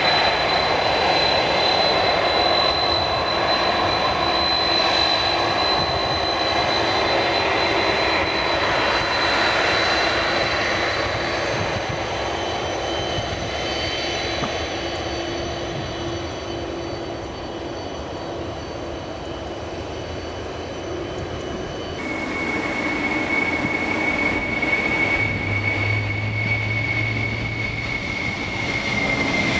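Boeing 747-400 turbofan engines running: a steady high-pitched whine over a broad roar. About two-thirds of the way through, the sound changes abruptly to another 747-400 with a lower whine, which sags slightly near the end.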